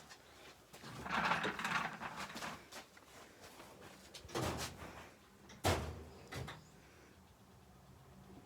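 Tools and metal engine parts being handled: a stretch of scraping and rustling, then a few sharp knocks and clinks.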